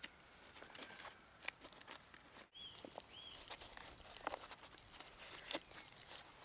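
Dry birch bark crackling and rustling in the hands as it is peeled from a rotten log and bent flat, in scattered small cracks and clicks. A bird gives two short high chirps a little past halfway.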